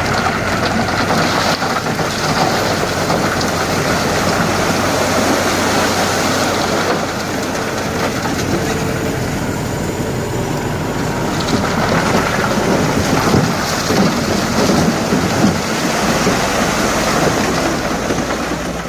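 Dump truck tipping sand: a steady rushing rumble of the load pouring from the raised bed, with the truck's engine running underneath.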